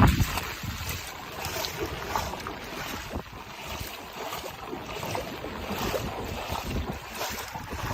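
Typhoon wind gusting against the microphone, with a strong gust at the start, over a steady rushing noise.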